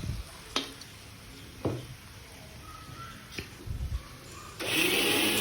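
Kitchen clatter around a pan of chicken frying in masala gravy: a few light knocks of utensils on the pan and a dull thump, then a loud rushing hiss near the end that lasts about a second.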